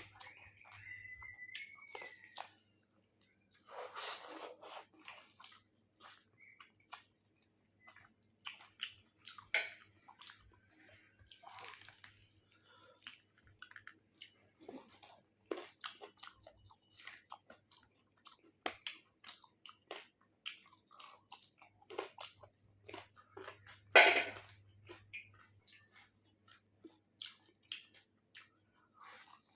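Close-up chewing and wet mouth noises of someone eating chicken curry with rice, made up of many short irregular clicks and smacks, with one louder burst about two thirds of the way through.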